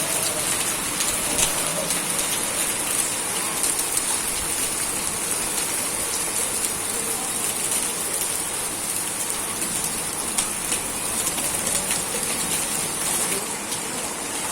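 Steady rain falling on a hard surface, with many scattered small drop ticks; it eases slightly near the end.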